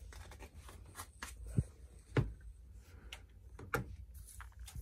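Spice shaker bottles being handled: a string of light clicks and knocks, about one every half second to second, as the bottles are shaken and set down on a plastic tote lid. A low steady hum runs underneath.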